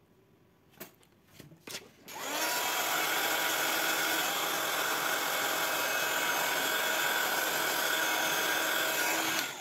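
Small electric motor with a fan running steadily for about seven seconds. It switches on about two seconds in with a short rising whine and stops just before the end, after a few light clicks.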